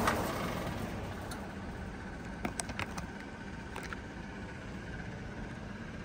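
2.5-ton Payne PH14 heat pump outdoor unit shutting down: the compressor's low hum and the fan's rush of air drop away right at the start, leaving a quieter steady mechanical hum with a faint whine. A few light clicks come about two and a half to four seconds in.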